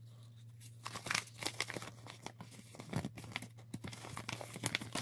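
Folded paper checklist leaflet being unfolded and handled, crinkling and crackling in a run of quick rustles that starts about a second in, over a steady low hum.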